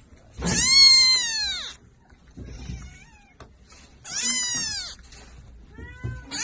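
Kitten meowing loudly, three high-pitched cries, each rising briefly then falling in pitch; the third begins near the end.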